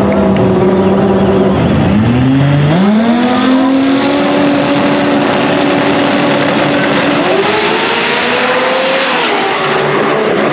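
Drag-racing Toyota Trueno's engine held at steady high revs on the starting line, then launching: the pitch dips and climbs about two seconds in and pulls on loudly, rising again and dropping once more near the end as it shifts.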